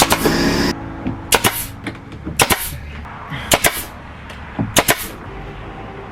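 Nail gun firing into tongue-and-groove wall boards: four sharp double cracks about a second apart, each pair a quick shot and knock. Background music cuts off just after the start.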